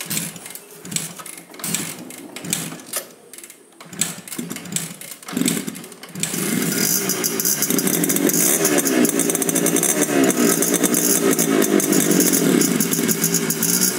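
Two-stroke motorcycle engines: for about six seconds uneven throttle blips and popping at low revs, then held at high revs, loud and continuous, with the pitch wavering up and down.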